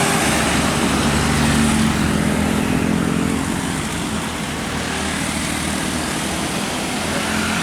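Bus engine running close by amid road traffic, loudest in the first three seconds and then easing off.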